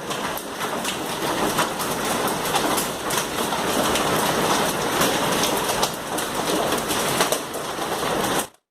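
Hailstones pelting down, a dense clatter of countless impacts with sharper, louder hits scattered throughout. Cuts off suddenly near the end.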